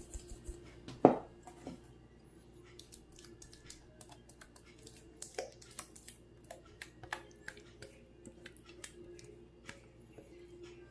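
Spoon knocking and scraping against a mixing bowl while stirring the wet mixture into the dry flour mixture: scattered light clicks and taps, with one sharper knock about a second in.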